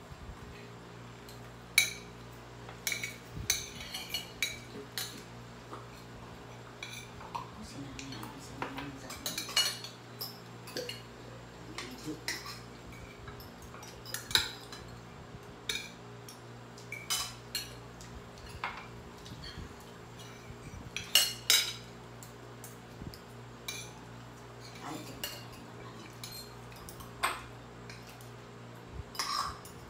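Metal spoons and forks clinking and scraping against ceramic plates as food is served and eaten, in irregular clinks all through, the loudest near the start and about two-thirds of the way through.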